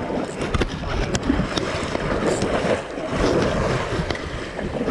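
Wind buffeting the microphone over choppy sea water washing against a boat's hull, with a few sharp clicks and knocks.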